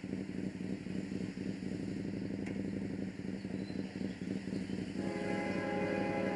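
Locomotive air horn sounding from a distance about five seconds in, a steady chord of several notes, over a steady low engine rumble.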